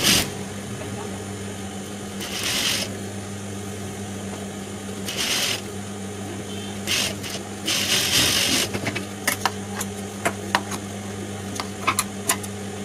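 Fabric handled at a sewing machine: several short rustling swishes, then from about nine seconds in a run of sharp scissor snips as the curved piped edge is clipped. A steady low electric hum runs underneath.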